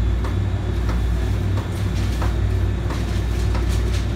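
Interior of an MBTA Green Line light-rail car in motion: a steady low rumble of the car's running gear and wheels on the track, with a few light clicks and rattles.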